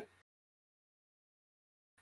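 Near silence: the sound drops out completely, with no room tone.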